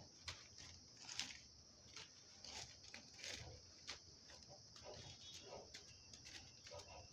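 Faint, scattered light rustles and taps of dry vegetable slices being taken from a plastic bag and set down on a wicker tray, over a faint steady hiss.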